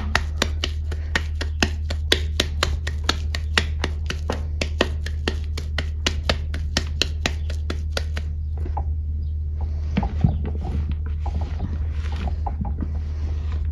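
Hands squeezing a ball of damp, water-crumbled powder: a steady run of short crunching squeezes, about five a second. After about eight seconds it turns to irregular scraping and rubbing as the fingers gather loose crumbs in the bowl.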